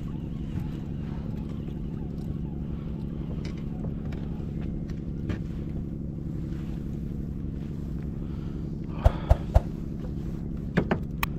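Fishing boat's inboard engine running steadily at a constant speed. Three sharp knocks come about nine seconds in, and a couple more near the end.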